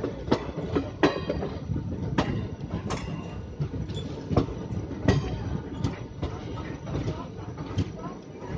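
Steel wheels of an Indian Railways passenger coach clattering over rail joints and points as the train rolls slowly into the station, heard from on board. Irregular sharp metallic clanks, some ringing briefly, sound over a steady running rumble.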